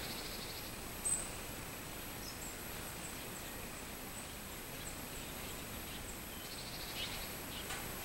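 Faint outdoor insect chorus: a steady high-pitched insect trill, scattered short chirps, and two brief pulsed cicada buzzes, one at the start and one about seven seconds in.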